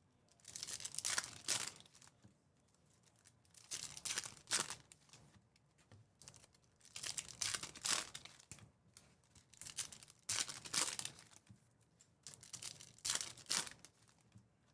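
Foil trading-card pack wrappers being torn open by hand and crinkled, in about five separate bursts of ripping roughly three seconds apart.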